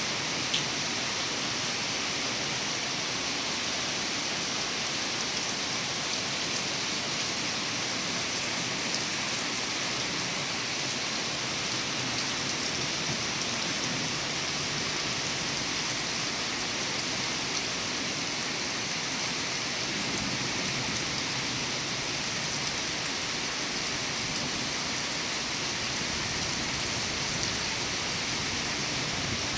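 Steady rain falling, an even hiss of many drops with a few faint ticks of individual drops.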